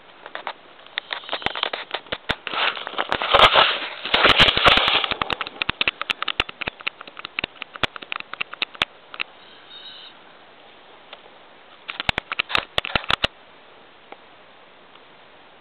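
A puppy sniffing and snuffling close to the microphone: quick irregular snuffles and clicks, loudest in the first few seconds, sparse for a while, then another short flurry near the end.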